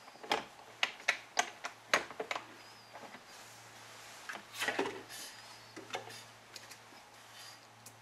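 Sharp metallic clicks and clacks from a racquet-stringing machine's fixed clamps and turntable being handled. A quick run of about eight clicks comes in the first couple of seconds, then a rustle and a few more scattered clicks as the racquet is turned.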